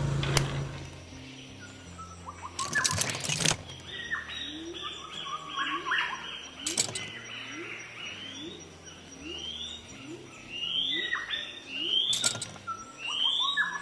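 Birds chirping in a run of short rising chirps, with a few sharp clicks in between.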